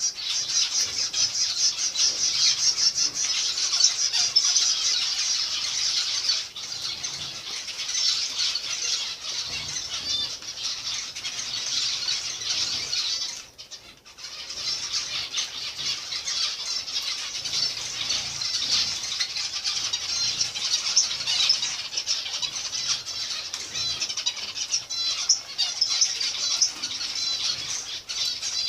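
A flock of zebra finches calling together in a dense, continuous high-pitched chatter of many short notes, with a brief lull about 13 seconds in.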